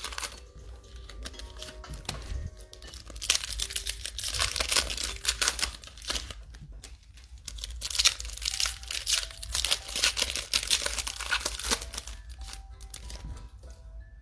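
Plastic wrapping on a blaster box of football trading cards being torn open and crinkled, in about three crackly spells. Soft background music plays throughout.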